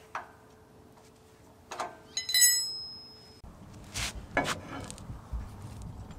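Metal parts and hand tools clinking while an engine is worked on by hand: a few knocks, and about two seconds in one ringing metallic clank that fades over about a second. Low rustling and handling noise follows.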